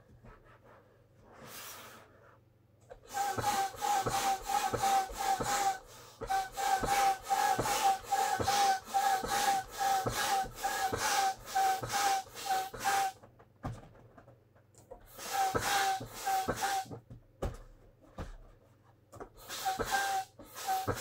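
Quick rhythmic squeaking from a large inflatable vinyl pony being rubbed and handled, about three squeaks a second, in runs of several seconds with short pauses between them.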